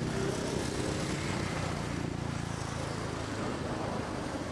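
A steady, low engine hum from a running motor, which weakens a little over the last second or so.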